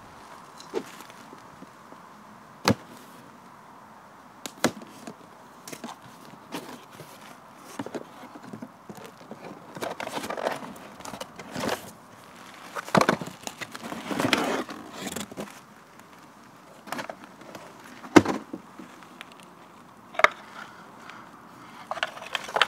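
A cardboard box being opened and a pond pump unpacked by hand: the lid sliding off with stretches of cardboard scraping and rustling around the middle, and scattered sharp taps and knocks from handling the box and pump, the loudest a knock about two-thirds of the way in.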